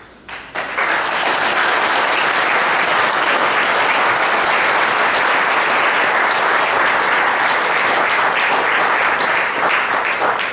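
Congregation applauding, a dense, steady clapping that starts suddenly about half a second in and keeps up without a break.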